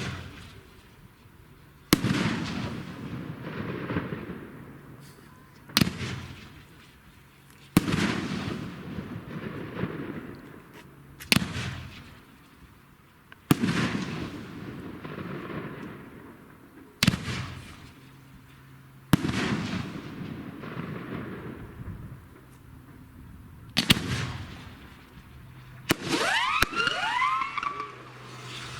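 Consumer fireworks going off: a sharp bang every two to four seconds, each followed by a fading crackle, about nine in all. Near the end, whistles glide down in pitch over the bangs.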